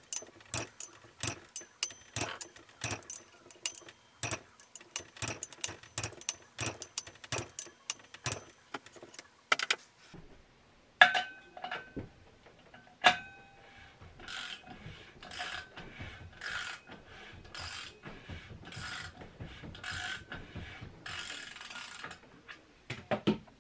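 Hand ratchet clicking in short strokes as the flywheel bolts on a Subaru EJ25 short block are run down, about two to three sharp metallic clicks a second. About halfway come two loud, ringing metallic clicks a couple of seconds apart, then a run of softer rasping strokes about once a second.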